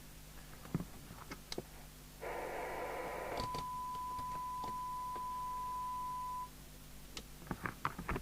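CB radio loudspeaker coming on with a burst of receiver hiss, which about a second later gives way to a steady 1 kHz test tone from the signal generator lasting about three seconds and cutting off suddenly. Small clicks and knocks of handling and switching come before and after.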